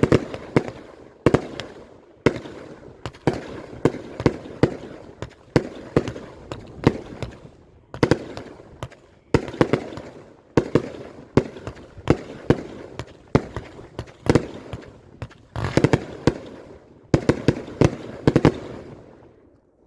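A Raccoon 1.4G consumer firework firing a rapid, irregular string of sharp bangs, several a second, with crackling between them. It dies away near the end.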